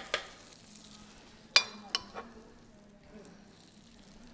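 Grated sweet-potato rösti mixture sizzling faintly on the hot plates of a waffle iron as it is laid on in portions. A few sharp clicks and knocks come right at the start and again around two seconds in.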